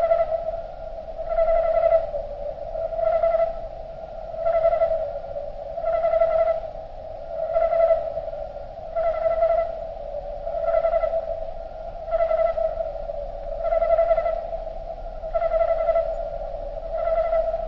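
Crickets chirping: a steady, fairly low-pitched trill that swells in regular pulses about every second and a half.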